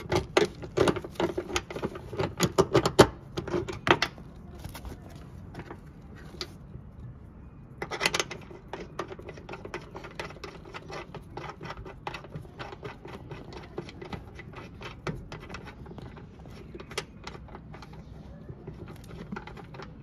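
Seat belt retractor and its webbing being handled and fitted back into a car's door pillar: a quick run of small plastic and metal clicks and rattles for about four seconds, a short rattle about eight seconds in, then scattered light clicks.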